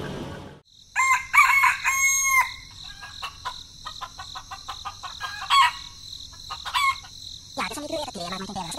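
Rooster crowing, a loud call beginning about a second in, followed by short clucks and chirps over a steady high insect trill.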